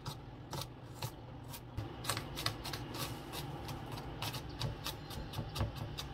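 Chef's knife chopping garlic on a plastic cutting board: irregular sharp taps of the blade against the board, about two to three a second, as the cloves are minced finely.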